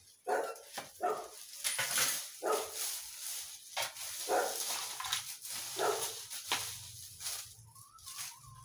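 A long-handled garden tool scraping and sweeping over a bare dirt yard in repeated strokes, about two a second.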